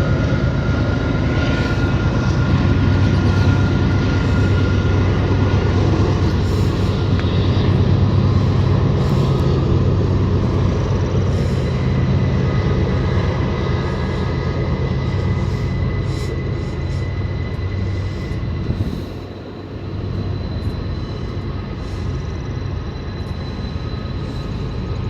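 Train passing with its diesel locomotives running: a steady low engine drone with faint high steady tones above it, dipping briefly near the end.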